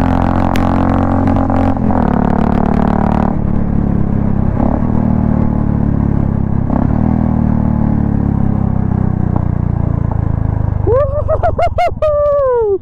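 Royal Enfield Classic 350's single-cylinder engine running steadily through a straight-cut pea shooter exhaust with no dB killer, while the bike is ridden. One sharp crack comes about half a second in, and the note turns duller about three seconds in. A voice calls out near the end.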